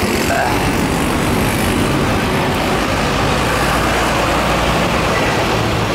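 Steady, loud running noise heard from inside a moving auto-rickshaw: its small engine and the rush of the road, with surrounding street traffic.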